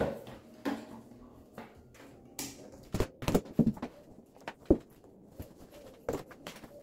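A run of irregular clicks and knocks, several close together in the middle, the loudest a sharp knock about two-thirds of the way through.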